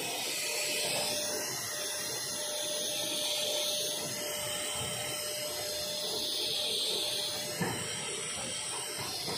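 Corded upright vacuum cleaner running on artificial turf: a steady whine and hiss that swells and fades as it is pushed back and forth, with one short knock near the end.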